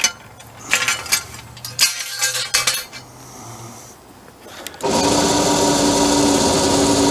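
Short metallic rattling and rasping of cable and hardware, then, about five seconds in, a motorised winch starts and runs steadily, hauling the cable that pulls the small aluminium boat up into the truck bed.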